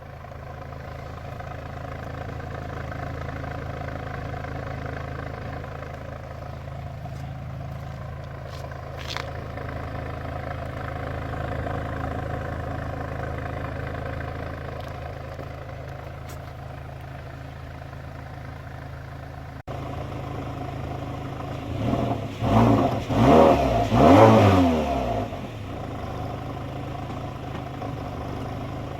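Mazda 6 GJ's 2.5-litre four-cylinder petrol engine idling steadily through its stock exhaust, then revved several times in quick succession in neutral, each rev rising and falling back, before it settles to idle again.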